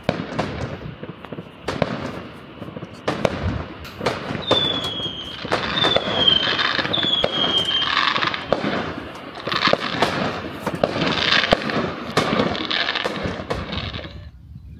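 Fireworks going off: a run of sharp bangs with crackling between them, and three short falling whistles about four to seven seconds in. It stops abruptly near the end.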